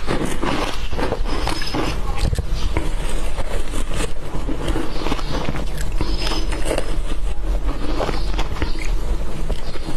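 Eating matcha shaved ice: a dense, irregular run of crisp crunches and spoon scrapes through the ice, over a steady low hum.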